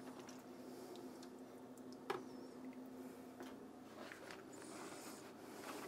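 Faint handling sounds as a smoked corned beef brisket is set down and moved about on a bamboo cutting board by hands in nitrile gloves: one soft knock about two seconds in, then light ticks and squishing. A faint steady hum runs under the first half and stops a little past halfway.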